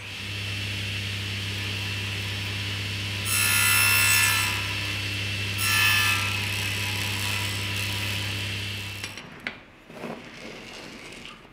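Table saw running with a steady motor hum. Twice, about 3 and 6 seconds in, the blade cuts into wood and the sound gets louder with a high whine. The saw cuts off about 9 seconds in, and light knocks and rubs of wood and a metal square on the saw table follow.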